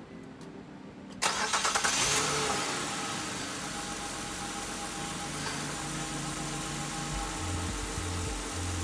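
A 2008 Nissan Quest's 3.5-litre V6 is cranked about a second in and catches almost at once. It settles into a steady idle. The engine starts promptly on its newly fitted camshaft position sensor, which was meant to cure a P0345 hard-start fault.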